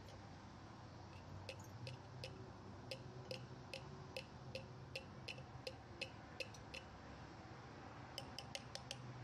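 Light clicking taps, about two and a half a second, then a quicker run of taps near the end, as a container is tapped to shake dried black precipitate powder into a glass jar.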